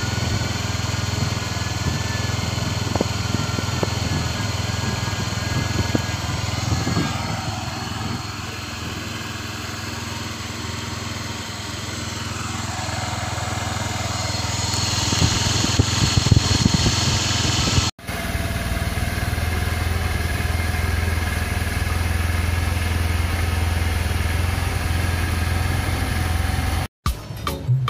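Automatic scooter's single-cylinder engine running, heard close to the exhaust muffler. It grows louder toward the middle, then after a short break settles into a steady idle.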